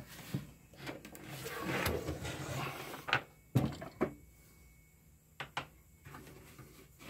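A Gibson GA5T Skylark amplifier cabinet being slid and turned on a wooden workbench: a scraping slide lasting about two seconds, then a few sharp knocks as the cabinet is set down and handled.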